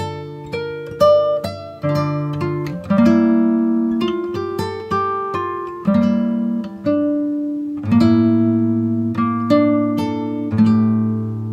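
Background music: acoustic guitar playing plucked notes and chords at an easy pace, the notes ringing out and fading before the next chord.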